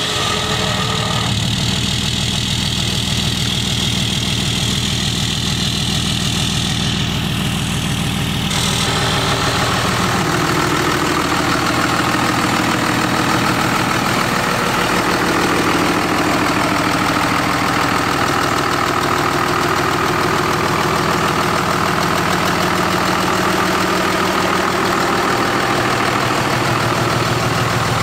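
Dodge Ram 2500's Cummins turbo-diesel inline-six idling steadily just after start-up. The tone of the idle shifts about nine seconds in.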